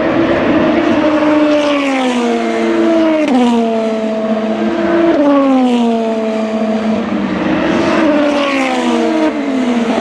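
Turbocharged 2.0-litre four-cylinder DTM race car engine running hard out of sight, its note sinking gradually and jumping suddenly in pitch about four times as it changes gear.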